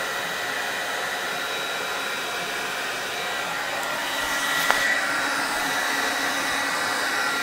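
Steady blower noise with a thin high whine running through it, and one sharp knock about two-thirds of the way through.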